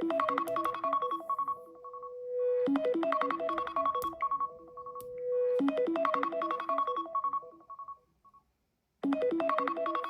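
Smartphone ringtone: a short keyboard-like melody that repeats about every three seconds, cuts off about eight and a half seconds in, and starts again half a second later.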